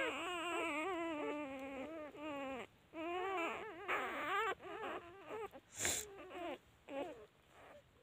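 Newborn puppies crying and whining: long wavering cries, one after another, then shorter cries toward the end. A brief sharp knock about six seconds in.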